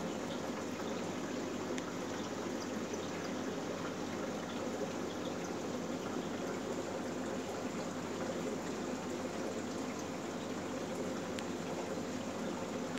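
Aquarium water running steadily, a continuous trickling and pouring sound with faint small ticks, typical of a tank's filter or circulation outflow.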